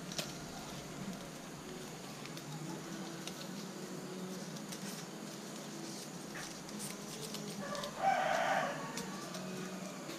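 A rooster crowing once, about eight seconds in, for about a second, over a low background with faint clicks of leaves being handled.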